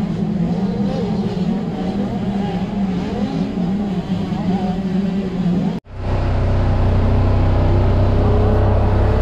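A steady low hum with wavering engine tones over it, then an abrupt cut about six seconds in to a side-by-side utility vehicle's engine running with a steady deep drone, heard from the driver's seat.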